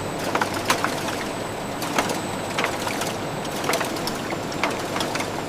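Factory machinery running: a steady mechanical noise with irregular sharp clicks and clanks.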